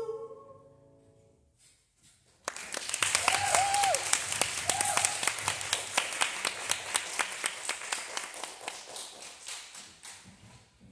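The last held sung note of a vocal duet with piano dies away in the first second. After a short hush, a small audience breaks into applause about two and a half seconds in, with two short whoops early on, and the clapping thins out and fades near the end.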